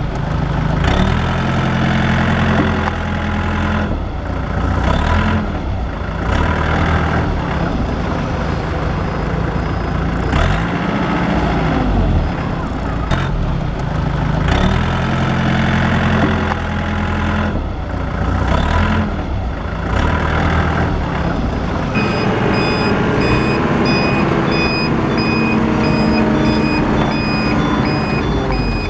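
Diesel engine of a Volvo EW55 wheeled mini excavator running under working load, its pitch rising and falling every few seconds. About 22 seconds in, a reversing alarm starts a steady run of beeps over the engine.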